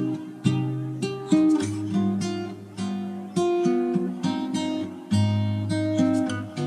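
Background music: acoustic guitar strummed and plucked, each chord struck sharply and left to ring out.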